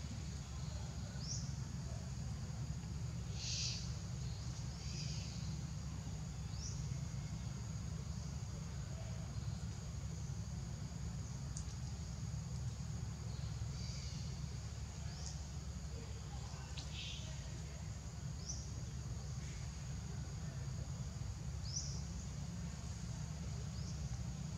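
Outdoor ambience: a steady high insect drone with short, high chirps every second or two, over a steady low rumble.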